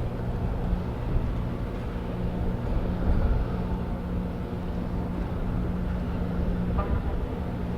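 Steady low drone of the ro-pax ferry AF Francesca's engines as it arrives in port, with a constant hum and a rumbling low end.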